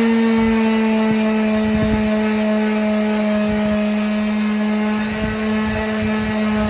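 Electric power saw running at full speed with a steady high whine, with a few low knocks as the wood is handled or cut.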